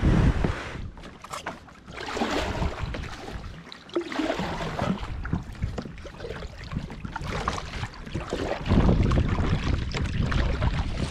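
Kayak paddle blades dipping and splashing in the water, a stroke every second or two, with wind buffeting the microphone.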